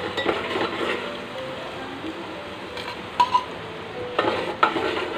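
Ground masala paste sizzling in hot oil in an aluminium pot as it is stirred with a steel spoon, with a few sharp metal clinks of spoon and bowl against the pot, about three seconds in and again a second later.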